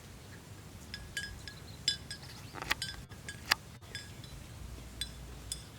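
Cow bells clinking irregularly as the cows move, each strike ringing at the same few high pitches, with the sharpest clinks near the middle.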